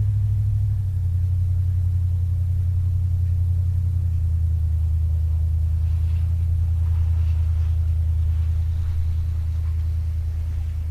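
1964 Dodge Custom 880's big-block V8 running at a steady idle, a deep, even exhaust rumble with no revving.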